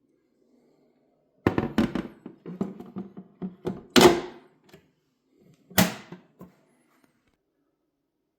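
A run of knocks and clatter from hard objects being handled and set down. The loudest thunks come about four seconds in and again near six seconds.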